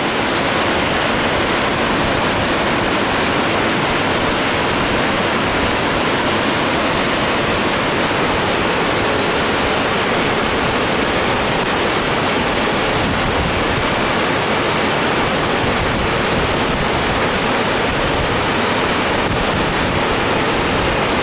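Rain-swollen creek rushing fast and turbulent below a dam: a loud, steady, even rush of whitewater.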